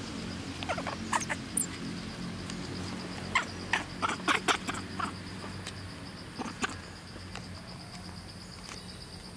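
Steady high insect trill, with short sharp squeaks and crackles close by in two bunches, about a second in and again around four to five seconds in.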